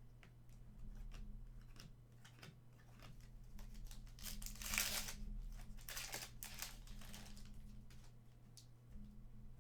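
Trading cards and their packaging being handled, with rustling and crinkling between scattered light ticks. The loudest rustle comes about four to five seconds in, with another shortly after.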